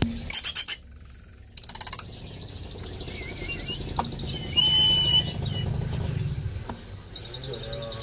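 Caged finches singing: short bursts of fast, high trills, with a few chirps between them.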